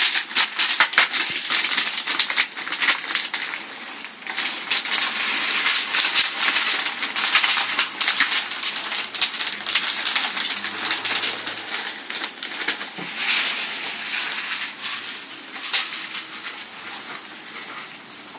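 Plastic bag of rabbit feed pellets crinkling and rustling: a dense, steady crackle that grows quieter over the last few seconds.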